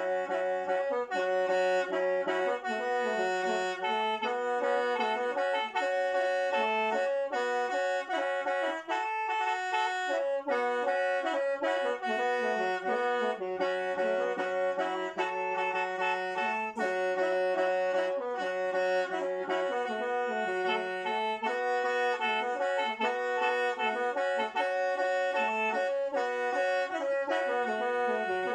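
Solo khaen, the Lao bamboo free-reed mouth organ, playing a lively melody over steadily held drone notes.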